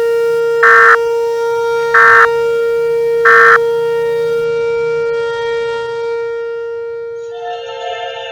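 Emergency Alert System tones: a steady, siren-like droning tone, with three short bursts of EAS digital data signal a little over a second apart. The drone fades away over the last few seconds as music with synthesized singing begins near the end.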